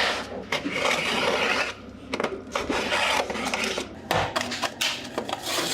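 Paper being rubbed and handled: scratchy rustling in irregular strokes with a few light clicks, pausing briefly about two seconds in.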